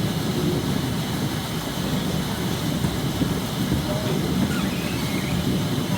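Beet-washing machine running with a steady, rumbling clatter.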